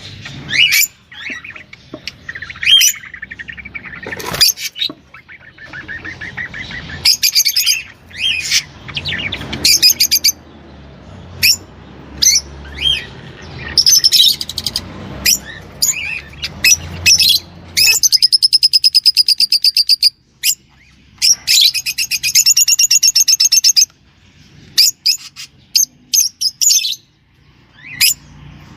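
A small songbird singing a varied run of high chirps and short phrases, broken by two long, fast trills of rapidly repeated notes, one about two-thirds of the way in and another a couple of seconds later.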